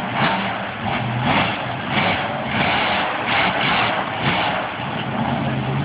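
Monster truck engine running and revving, its pitch rising and falling under a dense, steady noise.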